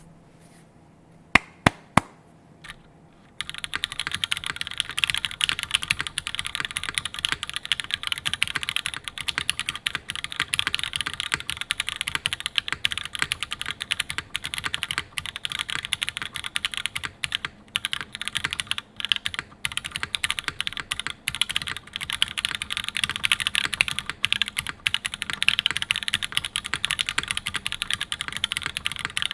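TGR Jane v2 CE custom mechanical keyboard with Cherry MX Black linear switches, GMK keycaps and a top-mounted carbon-fibre plate being typed on. Three sharp single keystrokes come about a second and a half in, then fast, continuous typing from about three seconds in.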